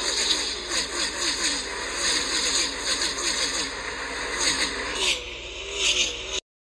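Racing car engines at speed, a pack of cars passing with the pitch falling again and again as each goes by, cutting off suddenly near the end.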